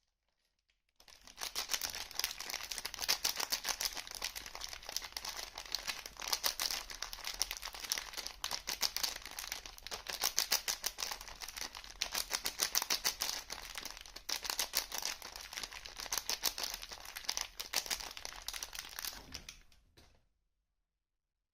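Packaging of a bar of soap being unwrapped by hand: a dense, unbroken run of fine crackles that starts about a second in and stops shortly before the end.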